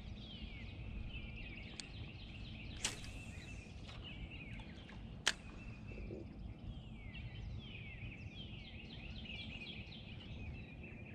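Birds chirping in a steady chorus of many quick, falling notes, over a low rumble. Two sharp clicks stand out, about three and five seconds in.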